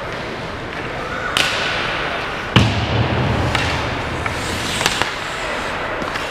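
Ice hockey play in a rink: a hard thump against the boards about two and a half seconds in, booming and ringing low for over a second, among sharper stick and puck clacks and the scrape of skates on the ice.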